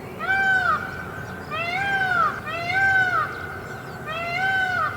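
Peacock calling four times, each a loud, meow-like wail that rises and falls in pitch, about a second and a half apart.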